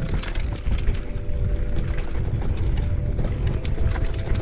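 Mountain bike descending a dirt trail: wind rumbling on the microphone, tyres on the ground, and the bike rattling and knocking over bumps, with a faint steady whine that comes and goes.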